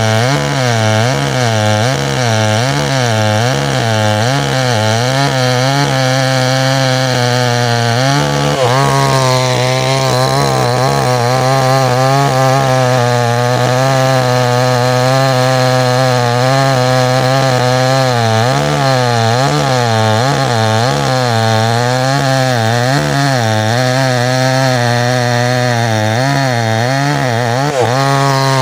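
Small chainsaw running hard while cutting into ironwood. Its engine pitch wavers up and down about once or twice a second as the load on the chain changes, and briefly sags and recovers about a third of the way in.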